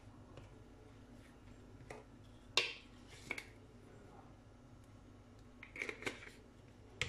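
Faint, sharp clicks and taps of a spoon and a plastic sauce bottle being handled over a kitchen counter. The loudest click comes about two and a half seconds in, another follows about a second later, and a quick cluster of clicks comes near six seconds, over a low steady hum.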